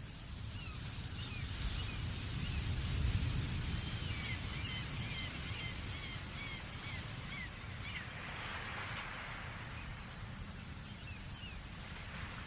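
Many gulls calling, short high squealing calls with quick rising and falling glides, over a steady low rumble.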